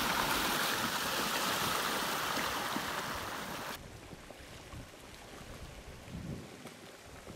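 Muddy flash-flood water rushing and churning past the bank, a loud steady roar of flowing water. Just over halfway in it cuts off suddenly to a much quieter, duller flow noise as a slow debris-choked flow front creeps along.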